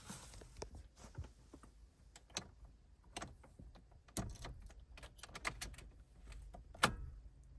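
Irregular light clicks and knocks of handling, with one sharper knock near the end.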